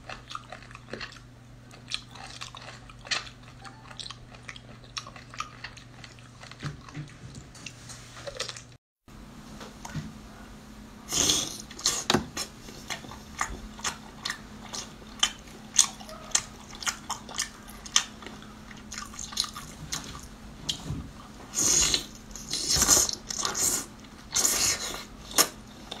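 Close-miked eating sounds: wet chewing and smacking bites of a sauce-dipped sea cucumber. After a short break about nine seconds in, louder, denser bites and chewing of skewered seafood in chili sauce.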